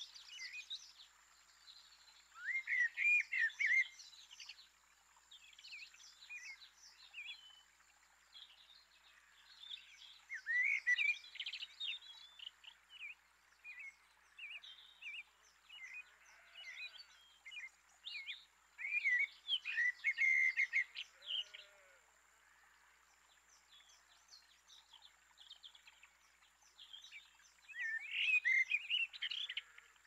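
Small songbirds chirping and singing: scattered short chirps, with louder bursts of quick, chattering notes about three seconds in, around eleven seconds, around twenty seconds and near the end. A faint steady high-pitched hum lies under them.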